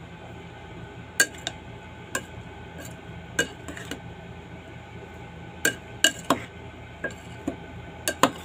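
A serving spoon tossing chopped vegetable salad in a ceramic bowl, clinking sharply against the bowl about a dozen times at irregular intervals, over a steady low hum.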